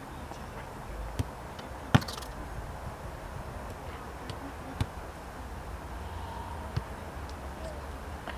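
Several sharp thuds of a football being kicked during play, the loudest about two seconds in and smaller ones spread through the rest, over a steady open-air background hum.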